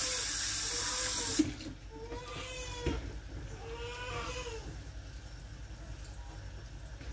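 Kitchen tap running into a sink as hands are washed, shut off abruptly about a second and a half in. Afterwards, several soft drawn-out cries that rise and fall in pitch, and one light knock.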